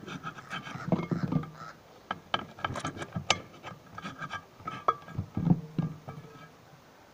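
Knife cutting conch meat on a round metal tray: a run of sharp, irregular taps as the blade strikes the tray, several of them leaving a short metallic ring.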